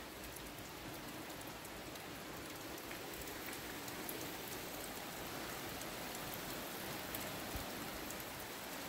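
Heavy rain pouring down, really noisy: a steady hiss with scattered drop taps.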